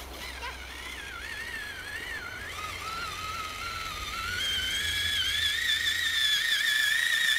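Electric motor of a radio-controlled monster truck whining, its pitch wavering with the throttle, then rising about four seconds in and holding high and steady as the truck strains, wheels churning, to climb out of deep snow. It cuts off suddenly at the end.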